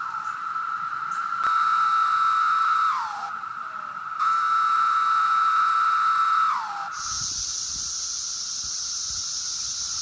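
Periodical cicadas (Magicicada) in full chorus: a steady, high, droning buzz. Two louder calls from a nearby cicada stand out over it, each about two seconds long and dropping in pitch as it ends. About seven seconds in, the sound changes abruptly to a hissier, higher chorus.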